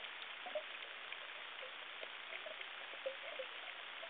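Underwater ambience: a steady hiss with scattered faint clicks and short low chirps.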